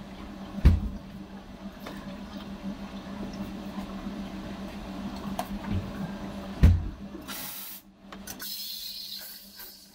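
Cafe work sounds: two heavy knocks about six seconds apart over a steady low machine hum, then short bursts of hissing near the end.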